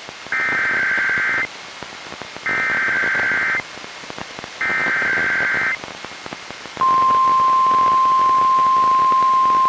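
NOAA Weather Radio Emergency Alert System header for a Required Monthly Test: three bursts of SAME digital data, each about a second long, then about seven seconds in the steady single-pitch 1050 Hz warning alarm tone starts and holds. It comes through a weather radio receiver with a constant hiss of static.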